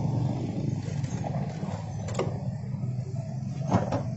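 Steady low motor hum, with two sharp clicks about two and four seconds in.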